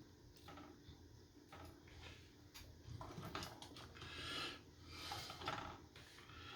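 Faint clicks and rustles of small plastic controller parts being handled, with a few soft breaths close to the microphone in the second half.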